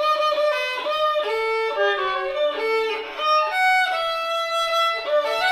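Solo fiddle playing a fiddle tune, a quick run of bowed notes changing pitch several times a second.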